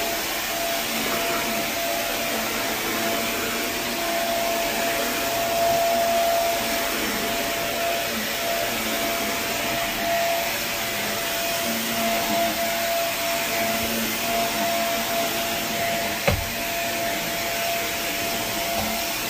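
Carpet steam-cleaning (hot water extraction) vacuum running steadily, with a steady whine over its rushing air. There is a single sharp click near the end.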